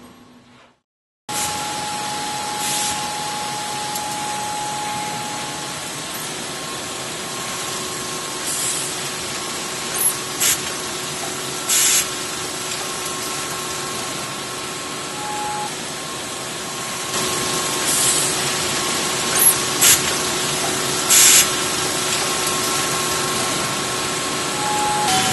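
Knife-factory machinery running in a steady noisy drone with faint steady hum tones, broken by about nine short, sharp bursts of high hiss. The first second or so is silent.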